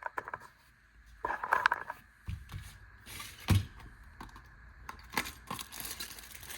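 Hands unpacking and handling small adjustable wrenches: scattered clicks, rustles and scrapes, with one louder knock about three and a half seconds in.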